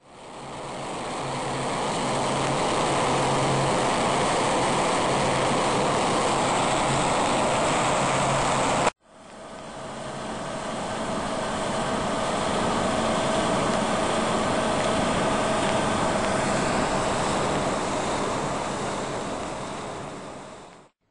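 Rushing, churning water in wastewater aeration basins as the aerators stir it, with a faint low hum under it in the first part. The sound cuts off abruptly about nine seconds in, fades back up, and fades out near the end.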